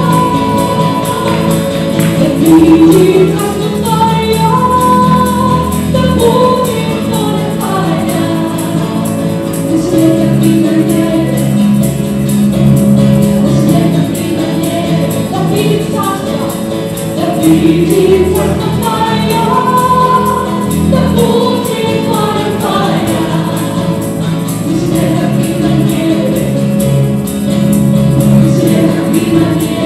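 Worship band performing a song: several men and women singing together into microphones over acoustic guitar, electric bass and keyboard.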